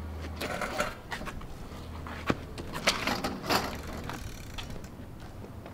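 A child's bicycle being picked up off concrete: its frame and parts rattle and clatter, with a few sharp clicks in the middle.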